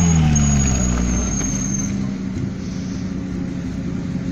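Suzuki Vitara 4x4's engine revving as it drives through a muddy forest rut, the revs falling away over the first second or two and settling into steady, lower running.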